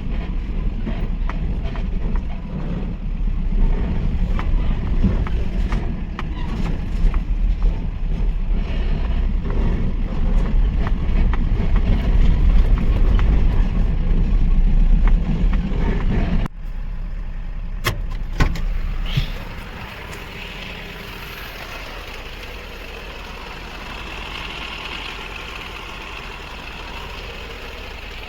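Overloaded Mahindra pickup truck's engine running on a rough track, a heavy low rumble with scattered knocks and rattles. About two-thirds of the way through it drops away suddenly, a couple of sharp clicks follow, and a quieter steady noise is left.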